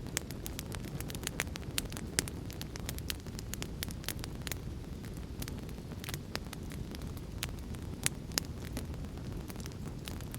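Fire crackling: a steady low rumble of flame under frequent sharp pops and snaps, with a few louder snaps about two seconds in and again about eight seconds in.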